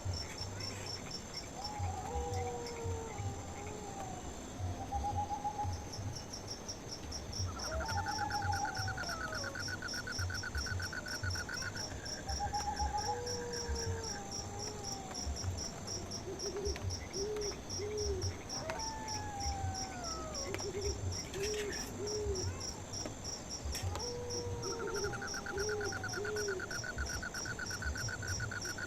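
Night chorus of insects: a steady, rapid pulsing chirp throughout. Over it, animal calls: repeated falling whistled notes, short notes in threes like soft hoots, and a fast trill in two long stretches, with soft low thuds underneath.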